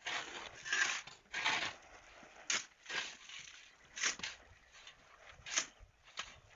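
Irregular gritty scrapes and crunches, a dozen or so short bursts with a few sharp clicks among them, as sand or mortar is worked on the site.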